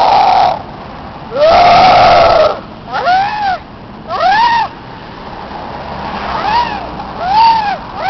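Human voices imitating animal cries: two long, loud drawn-out yells, then a string of short squawks that each rise and fall in pitch, like caws.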